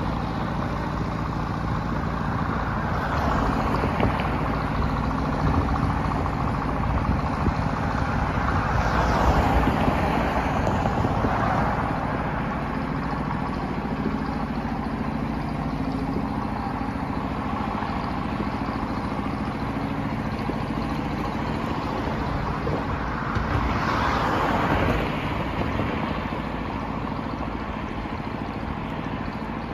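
Truck engine idling steadily, with two louder swells of vehicle noise about nine and twenty-four seconds in.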